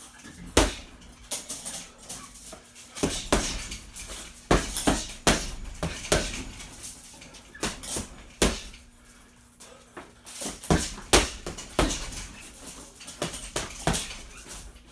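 Gloved punches landing on a hanging heavy bag, single sharp thuds and quick combinations of two to four hits at irregular intervals.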